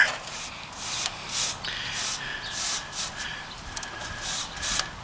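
Repeated scraping strokes, about two a second, as a coil-cleaning tool is raked through the aluminium fins of an air-conditioner condenser coil, pulling out dust and cobwebs.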